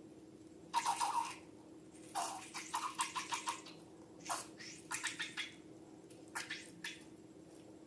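Slime and balloons being handled: several clusters of short, crackly handling noises in quick succession, over a faint steady hum.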